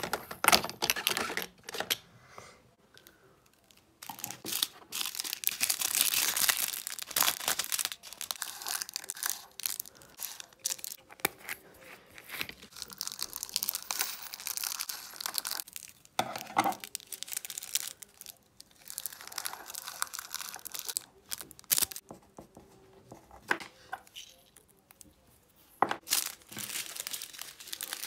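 Small plastic zip bags of diamond-painting drills being crinkled, torn open and handled, with the tiny resin drills pouring into a glass jar. The rustling comes in irregular bouts with short pauses.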